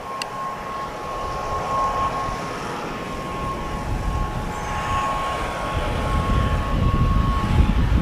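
ATR twin-turboprop airliner approaching to land: a steady high whine from its engines and propellers over a low rumble, both growing louder as it comes closer.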